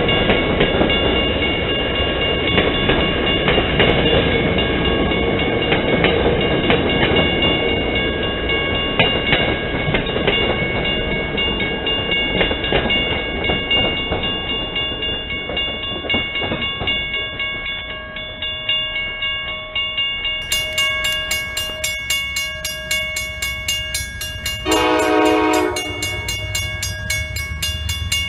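Commuter train's bilevel coaches rolling past with wheel rumble and rattle, fading away over the first dozen seconds, while a grade-crossing bell keeps ringing in a fast, even beat. About 25 s in, an approaching train sounds one short horn blast, and a low rumble builds near the end.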